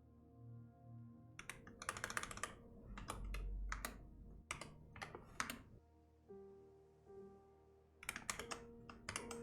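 Typing on a computer keyboard in quick bursts of key clicks, with a pause of about two seconds near the middle. Soft background music with long held notes plays underneath.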